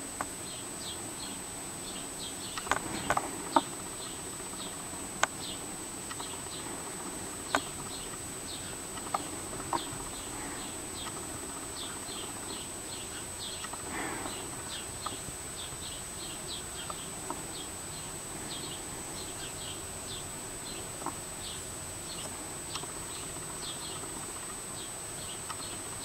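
Small birds, house sparrows, chirping: a long run of short, high chirps, several a second. A steady thin high tone runs underneath, and a handful of sharp clicks stand out, most of them in the first ten seconds.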